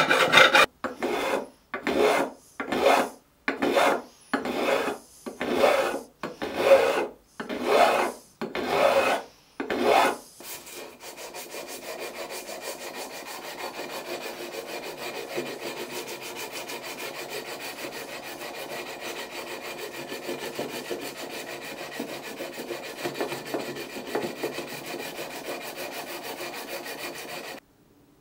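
File strokes along the edge of a freshly fretted guitar neck, dressing the fret ends: about a dozen separate strokes, a little more than one a second. About ten seconds in they give way to a quieter, steady rubbing that cuts off suddenly near the end.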